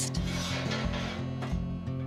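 Background music with a steady bass line, over a light metal scraping as a Dutch oven is slid out on the oven rack.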